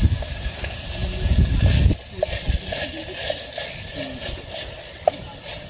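Strong wind buffeting the microphone in gusts for about two seconds, then easing to a steady hiss with light scattered clicks.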